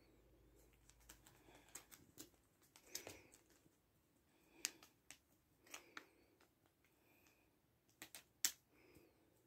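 Irregular light clicks and taps as a cat bats and bites at a butterfly toy dangling on a string from a plastic wand, with a quick cluster of the loudest clicks near the end.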